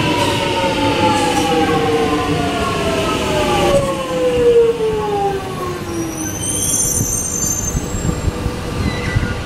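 X'Trapolis electric train braking to a stop, its traction motor whine falling steadily in pitch over about six seconds along with wheel-on-rail rumble. A thin, high brake or wheel squeal rings briefly near the end as it halts.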